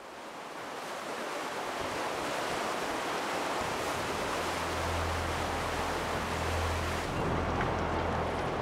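Rushing white water of a river rapid, a steady noise that fades in at the start and settles. A low steady hum joins about halfway through.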